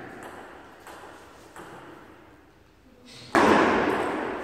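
Table tennis ball being played: a few faint taps, then about three seconds in a sudden loud hit that rings on in the echoing hall as the rally starts.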